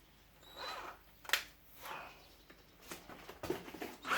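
A few scattered clicks and short squeaks of metal tools and plastic parts being handled during disassembly, with a power drill starting to run right at the end.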